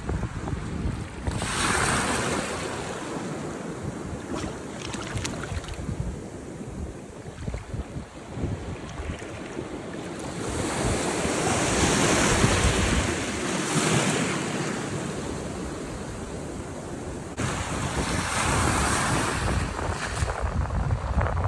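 Small waves washing in and out over shallow water at the shoreline, swelling louder a few times, with wind rumbling on the microphone.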